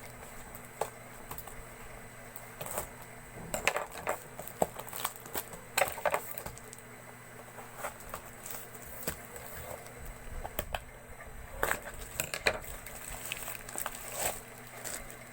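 A cardboard box and its plastic packaging being opened by hand: irregular crackles, rustles and scrapes, with a few sharper clicks.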